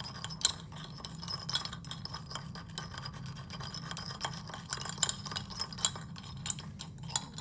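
Ice cube rattling and clinking against the sides of a small glass beaker as it is stirred into salt, a run of irregular light clicks and scrapes, over a steady low hum.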